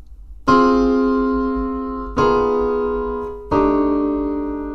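Piano playing three chords in succession, each struck once and held to fade: a minor ii–V–i in C minor in inverted voicings.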